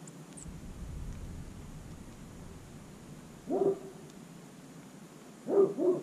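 A dog barking: one bark about three and a half seconds in, then two quick barks near the end.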